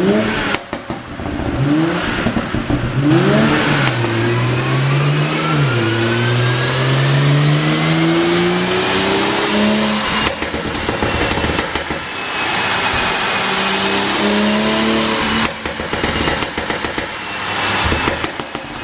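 BMW X7 xDrive40i's turbocharged 3.0-litre inline-six revving and pulling up through the revs, its pitch climbing steadily for several seconds, with bursts of exhaust pops and crackles from a pop-and-crackle tune when the throttle closes: at the start, around ten seconds in, and again near the end.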